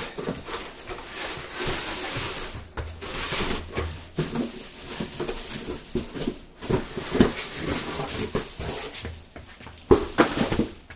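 Packaging rustling and crinkling as a metal strut tower brace is unwrapped, with small clicks and a few louder knocks from handling it.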